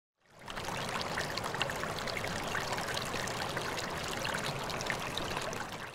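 Running water: a steady rush of flowing water with many small splashes and trickles, fading in about half a second in.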